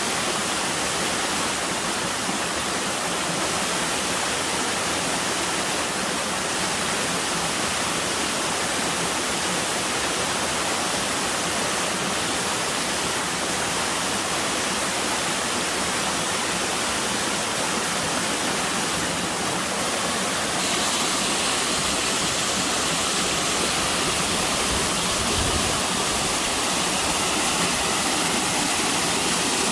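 Mountain waterfall pouring over rock tiers in a steady, loud rush of falling and splashing water. About 21 seconds in, the rush turns slightly louder and brighter.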